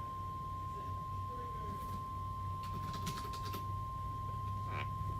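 NOAA Weather Radio's 1050 Hz warning alarm tone sounding as one long, steady, pure beep through the receiver, signalling that a tornado warning is about to be read. A few faint clicks come about three seconds in.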